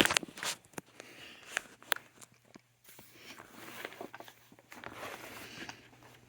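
Handling noises: a run of sharp clicks and knocks in the first couple of seconds, then rustling, over a faint steady low hum.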